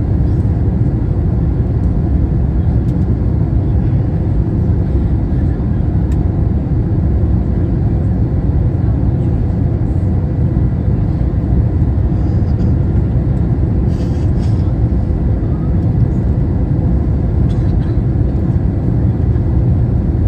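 Steady low rumble inside an airliner cabin on approach to landing: engine and airflow noise with a few faint ticks about two-thirds of the way through.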